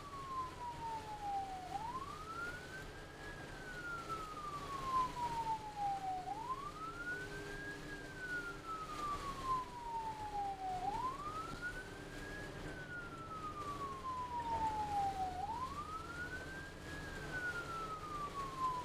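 Ambulance siren on a wail: each cycle rises quickly in pitch and then falls slowly, repeating about every four and a half seconds, over the steady low noise of the moving vehicle.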